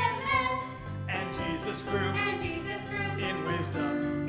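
Children's Bible song played on a recorded backing track with a steady bass, with voices singing a repeat-after-me line.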